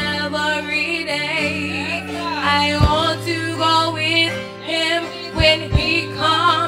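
Two women singing a worship song into microphones, with vibrato, over held keyboard chords. A few short low thumps come in the second half.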